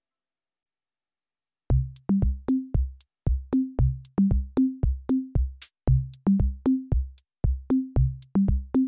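Electronic background music: silence for under two seconds, then a fast drum-machine beat of deep, pitched bass-drum notes with sharp clicks starts and keeps going.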